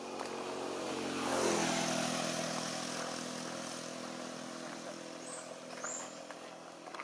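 A passing motor vehicle's engine: it grows louder, drops in pitch as it goes by about a second and a half in, then fades away.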